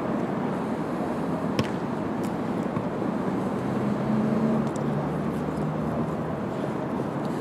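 Steady outdoor background noise with a few sharp knocks of a football being kicked on the pitch, the clearest about one and a half seconds in.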